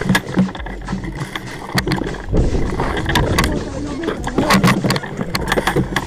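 Handling noise on a helmet-mounted action camera: clothing and gear rustling and knocking, with a low rumble on the microphone and scattered sharp clicks.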